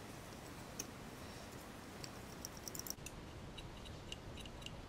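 Light plastic clicks and ticks from a plastic model wagon being handled and rubbed with a cotton bud. There is one click about a second in, a quick cluster just before halfway, and a run of small ticks near the end, over a steady low hiss.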